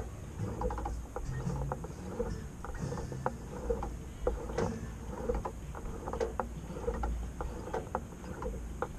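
Fishing reel being cranked to wind in a hooked fish: the reel's gears click in a steady rhythm, about three turns every two seconds, over a low rumble.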